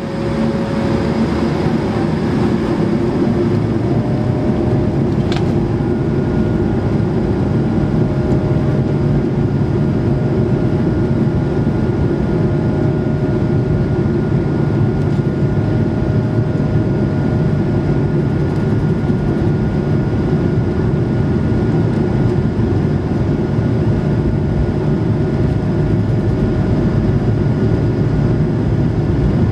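Airbus A220-300's Pratt & Whitney PW1500G geared turbofans heard from inside the cabin at high thrust: a steady, loud rush of engine and air noise with a held whine. A single sharp click comes about five seconds in.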